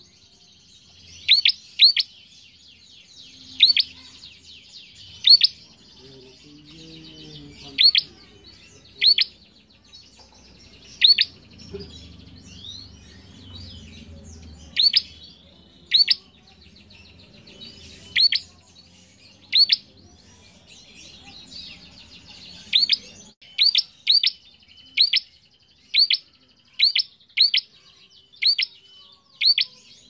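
A caged prenjak in full song: loud, sharp, down-sweeping chirps about a second apart, coming faster near the end, over a steady softer buzzing chatter.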